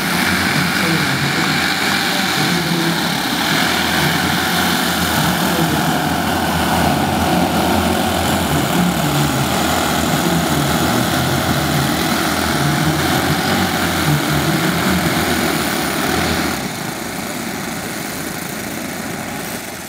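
Twelve O.S. FS-62V four-stroke glow engines of a giant-scale RC Dornier Do X flying boat model running together while it taxis on grass, a loud, steady multi-engine drone. About sixteen seconds in, the sound drops sharply and the low engine note falls away.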